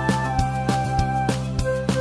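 Background music with a steady beat of about three strikes a second under a sustained melody and bass line.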